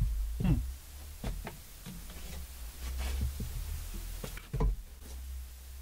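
Gulps and swallows of someone drinking from a glass, heard as a few soft, low thumps, the strongest about half a second in and again past four and a half seconds, over a steady low hum.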